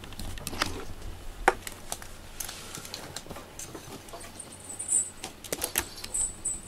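A cat pawing at a small cloth toy mouse on a cushion: scattered light taps, knocks and rustles, the sharpest knock about one and a half seconds in, with two brief high-pitched sounds near the end.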